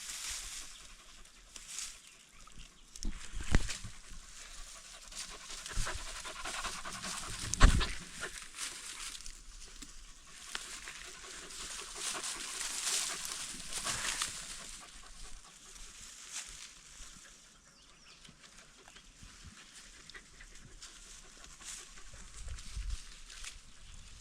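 Dogs panting after a chase, an uneven breathy sound, with a few knocks and thumps, the loudest about eight seconds in.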